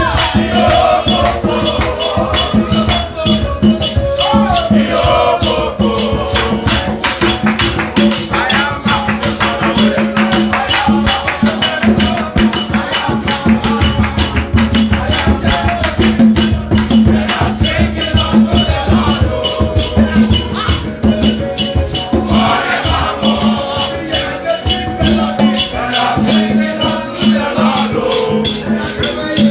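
Worship music: a fast, steady shaker rhythm over sustained held chords, with a voice gliding in now and then.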